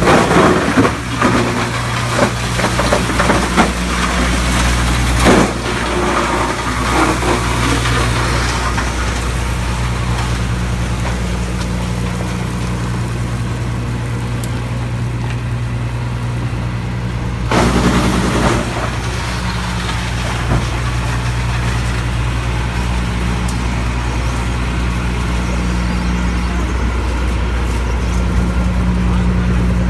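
Drum wood chipper running with a steady low hum, with louder rough stretches in the first few seconds and again briefly past the middle.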